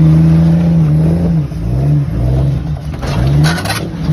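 Jeep Cherokee XJ's swapped-in 5.7-litre V8 engine revving in repeated throttle blips, its pitch rising and falling, as the Jeep crawls over a boulder. A short burst of noise comes about three seconds in.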